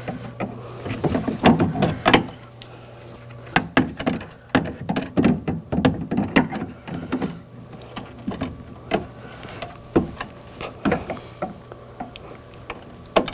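Irregular clicks, taps and knocks of a trim tool and parts working inside a car door as the exterior door handle cable end is pushed into place. A faint steady low hum runs underneath.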